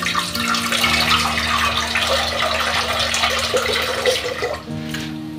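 Water running from a kitchen tap into a metal saucepan, splashing into the pot. It stops shortly before the end.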